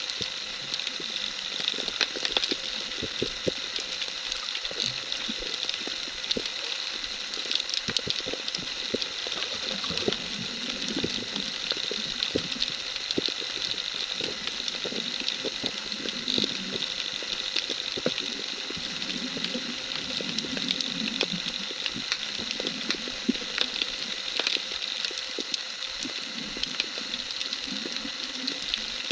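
Underwater ambience recorded from the seabed: a steady hiss crackling with many small clicks, with some low burbling that starts about ten seconds in.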